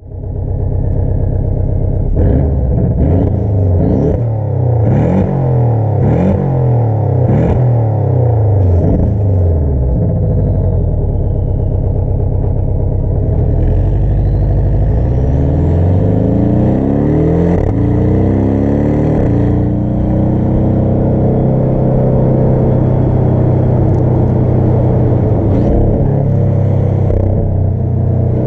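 Sports car engine revving, its revs rising and falling several times in quick succession. About halfway through it climbs in a longer rise, then runs steadily at higher revs.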